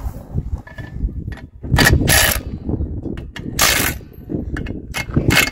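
Cordless impact wrench hammering on the lug nuts of a tractor's rear wheel hub, in several short loud rattling bursts.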